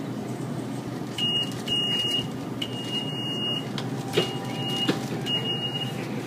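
Electric shopping-cart mobility scooter's electronic beeper sounding five high-pitched beeps of uneven length, over a steady low background noise. Two sharp clicks come during the later beeps.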